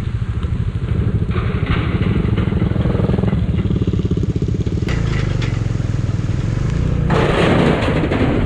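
Bajaj Dominar 400's single-cylinder engine running steadily under way, its note shifting about five seconds in. A loud rushing noise comes in about seven seconds in.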